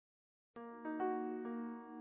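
Silence, then background music starts abruptly about half a second in: a tune of clear struck notes, about two or three a second.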